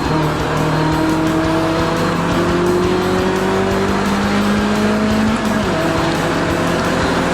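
Lotus Elise Sport 220 II's supercharged four-cylinder engine pulling hard under acceleration, its note rising steadily, then dropping suddenly at a gear change about five and a half seconds in before climbing again.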